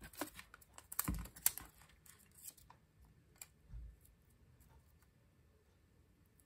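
Faint crinkling, tapping and small clicks of paper and a roll of mini glue dots being handled, busiest in the first two seconds or so, with a soft thump about four seconds in.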